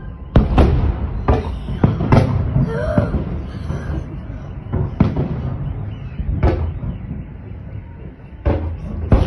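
Salute fireworks shells bursting, heard through window glass: an irregular series of sharp bangs, often one or two a second, over a low rumble.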